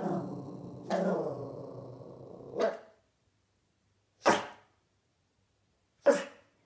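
Pomeranian puppy vocalising: two drawn-out pitched calls that trail off, then three short, sharp barks spaced a second and a half to two seconds apart.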